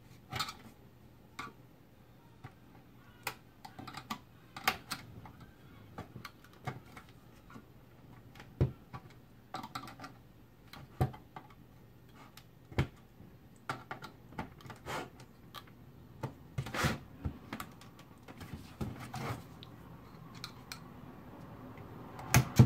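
Flat-blade screwdriver working the catches of a Nissan car radio's front panel off its steel chassis: irregular clicks, taps and scrapes of metal and plastic, with a few louder knocks spread through.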